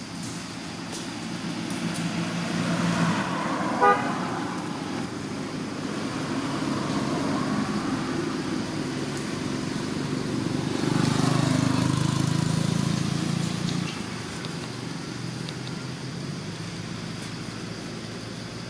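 Road traffic: vehicle engine noise swelling as vehicles pass, twice, with a short horn toot about four seconds in.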